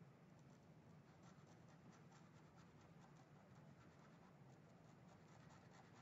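Faint scratching of a Micron fineliner pen on paper: many quick, short strokes filling in a black area, over a low steady hum.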